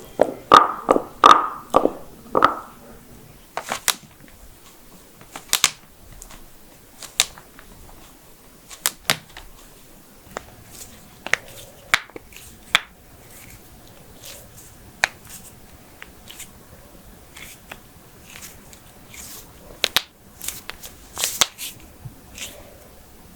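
Human joints cracking: a quick run of about half a dozen pops in the first couple of seconds, then single sharp pops every second or two.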